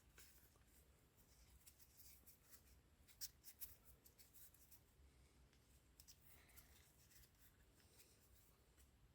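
Near silence with faint handling sounds: small scratchy rustles and a few light clicks, the sharpest about three seconds in.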